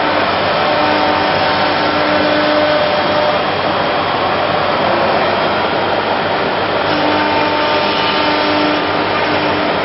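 ATC CNC router machine running: a loud steady rushing noise with a faint steady hum that fades out a little after the start and returns about seven seconds in.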